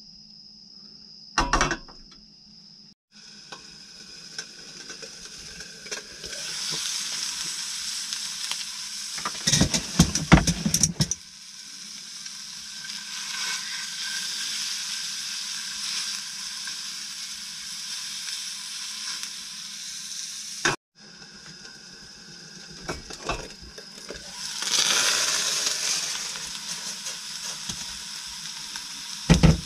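Mackerel and filefish sizzling as they fry in oil in a frying pan. The sizzle starts about three seconds in and grows louder, with a burst of knocks about ten seconds in. It cuts off for a moment near twenty-one seconds, then swells again.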